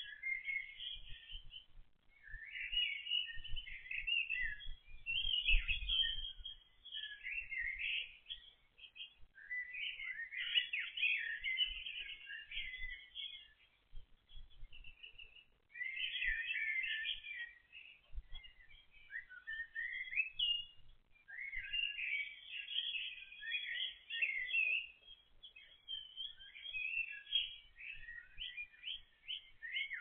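Songbirds chirping and singing in overlapping bursts of quick, high calls, a fresh burst every few seconds.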